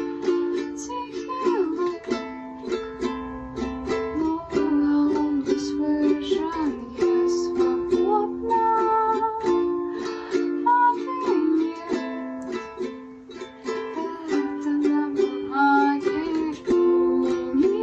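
Ukulele strumming chords in a steady rhythm, an instrumental stretch of a song, in a small room.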